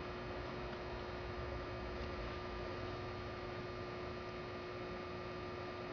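A steady electrical hum over a faint hiss: room tone.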